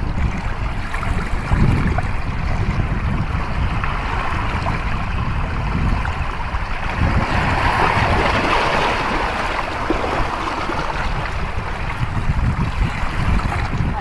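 Wind rumbling on the microphone over small sea waves washing against shore rocks, with a wave splashing up over the rocks for a few seconds around the middle.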